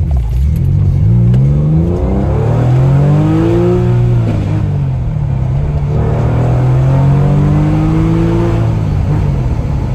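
Porsche 996's 3.4-litre flat-six through a Design Tek stainless steel sports exhaust, accelerating: the engine note rises, drops back about halfway through, then rises again and falls near the end. It is heard from inside the cabin with the window down, with wind noise.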